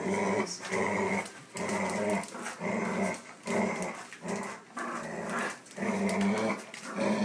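Dogs growling in play while tugging on a toy: a run of growls, each under a second, with short breaks between them. The growling is part of the tug-of-war game, not aggression.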